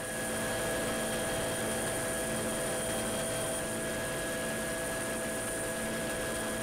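Helicopter in flight heard from on board: several steady whining tones over an even rushing noise.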